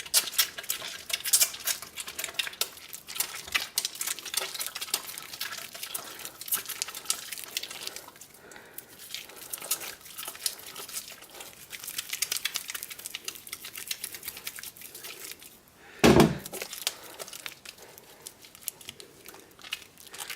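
Wet hands rubbing a bar of handmade soap to work up a lather, a run of irregular wet crackles and squelches. About three quarters of the way through there is one short, louder thump.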